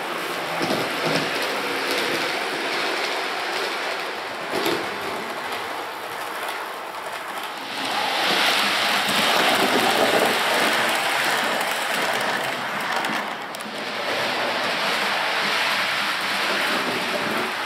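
Model E.412 electric locomotive and a short rake of sliding-door wagons running on model railway track: a steady rolling rattle of wheels on rail with occasional clicks, louder about eight seconds in.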